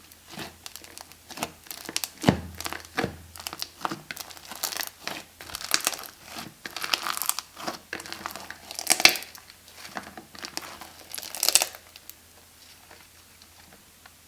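Slime being squeezed and worked by hand, crackling and crinkling in irregular bursts, stopping about twelve seconds in.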